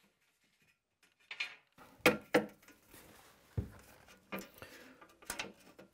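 An aluminium shower-enclosure wall channel knocking and clinking against ceramic wall tiles as it is handled and held up to the wall. It gives a handful of separate sharp knocks, starting about a second in.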